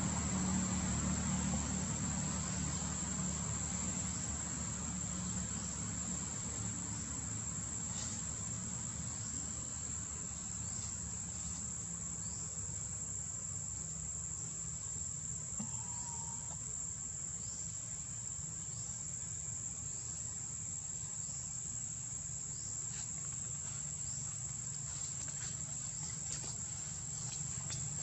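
Forest insects droning with one steady high-pitched tone, over a low rumble, with faint short chirps now and then.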